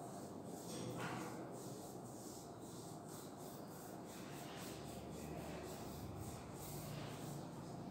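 Small paintbrush rubbing paint onto the inner edge of a wooden mirror frame beside the glass, in faint, repeated strokes.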